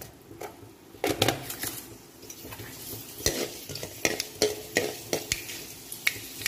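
Steel ladle scraping and clinking against a metal kadai, stirring fenugreek seeds as they fry in hot sesame oil for a tempering, with a light sizzle under it. The clicks and scrapes come quickly from about a second in.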